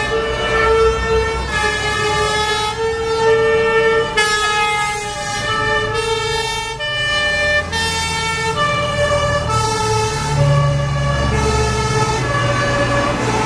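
Two-tone emergency vehicle sirens sounding together out of step, each switching back and forth between two pitches about every second. Under them runs the low rumble of a heavy truck engine, which grows louder around ten seconds in.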